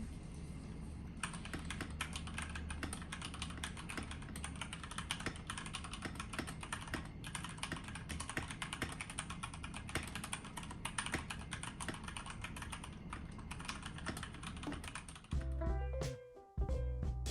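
Epomaker GK96S mechanical keyboard being typed on: a fast, continuous clatter of keystrokes starting about a second in. Background music comes in louder near the end.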